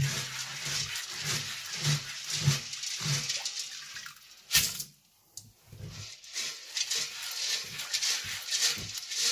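Soybeans being sifted through water in a stainless steel bowl with a mesh rice-sifting scoop: rhythmic swishing of water and beans, about two strokes a second. A sharp clatter about four and a half seconds in, a moment's hush, then the swishing resumes.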